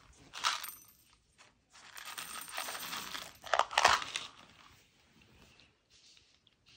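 Dry cat kibble poured from a crinkling plastic bag into a plastic food bowl, a rustling rattle through the middle that is loudest in a burst of hard pellet clatter about four seconds in. After it comes a faint crunching of a kitten eating the kibble.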